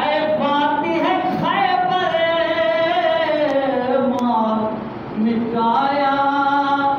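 A solo voice chanting a Shia devotional recitation without instruments, holding long wavering notes that slide downward, with a brief break about five seconds in before the next held note.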